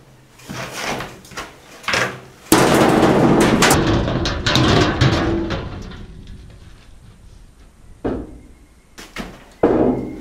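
Knocks on a cut-out panel of corrugated steel shipping-container wall. The panel then breaks free and crashes out of the opening in a loud metallic clatter that fades over a few seconds. A couple more knocks come near the end.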